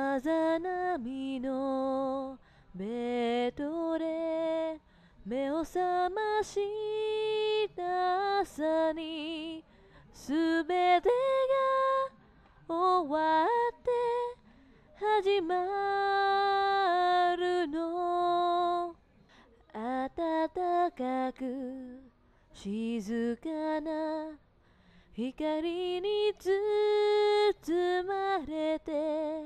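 A woman singing solo with no accompaniment, a slow melody in phrases separated by short pauses, holding some long notes with a slight waver.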